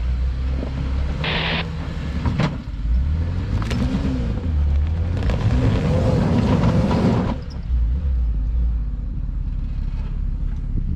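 Two-door Jeep Wrangler Rubicon engine pulling at low speed as the Jeep crawls over a stump and rocks. The engine revs up and back down twice, with a few knocks from the rock. It settles back to a low rumble after about seven seconds.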